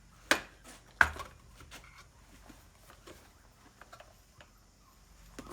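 Workshop handling sounds: two sharp clicks, about a third of a second and a second in, then faint light taps and rustles as the tyre is readied for inflating. A low steady hum starts at the very end.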